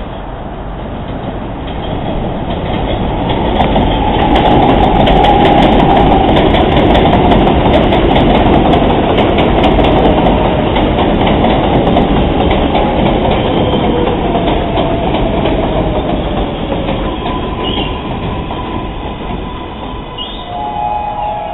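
R142A subway train pulling into an elevated station and slowing to a stop: it grows loud as it arrives, wheels clacking over the rail joints, with a whine that falls in pitch as it brakes. Short brake squeals come near the end as it stops.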